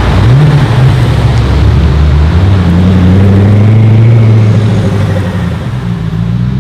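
High-performance car engine accelerating hard. Its note climbs sharply just after the start, holds high and loud through the middle, then fades and falls in pitch near the end.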